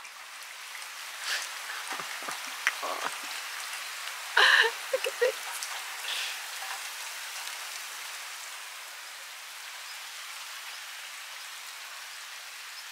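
Steady rain falling in an even hiss, with a few brief louder sounds in the first half, the loudest a short burst about four and a half seconds in.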